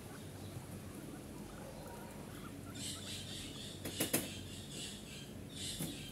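Guinea pigs eating fresh vegetables and leafy greens from a bowl. Repeated short crunching and rustling begins about three seconds in, roughly three bites a second, with two sharp clicks just after four seconds.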